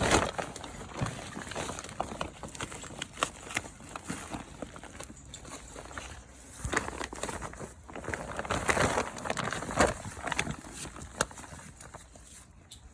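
Grow bag of potatoes being tipped and shaken out into a container: soil and stones pouring and pattering, with rustling from the bag and scattered knocks. Louder swells come about seven seconds in and again around eight to ten seconds.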